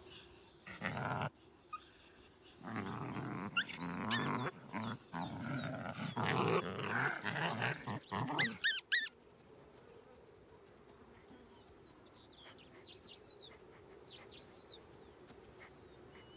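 Jackals growling and snarling at each other in a confrontation over a submissive intruder, in loud rough bursts for about nine seconds, ending in high whining yelps. Afterwards it is much quieter, with only a few faint high squeaks.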